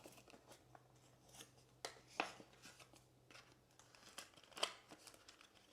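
Near silence broken by a few faint, short rustles and ticks: a Pokémon trading card being handled and slipped into a plastic card holder.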